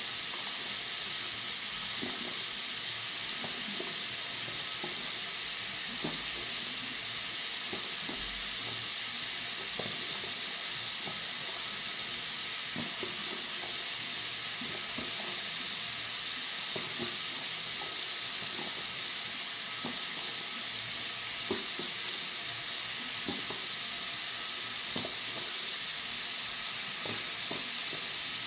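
Water running from a bathroom sink tap: a steady, high hiss, with small splashes ticking through it now and then.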